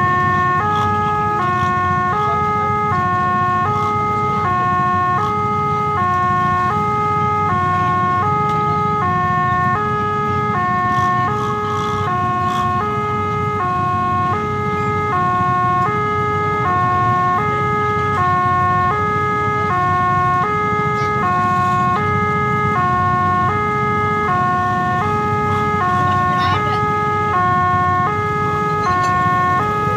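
Railway level-crossing warning alarm sounding continuously, an electronic two-tone chime switching between a higher and a lower pitch about every half second: the signal that a train is approaching and the barrier is down. Motorcycle engines idle underneath.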